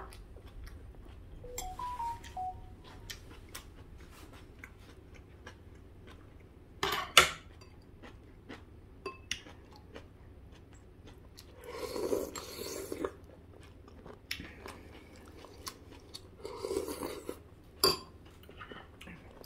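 Tableware clinking during a meal: metal spoon and chopsticks tapping and scraping against ceramic bowls and plates in scattered clicks, one louder knock about seven seconds in, with chewing.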